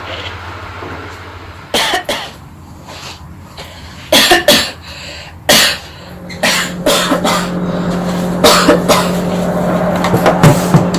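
A person coughing repeatedly, in short clusters of sharp coughs every second or two, over a steady low hum.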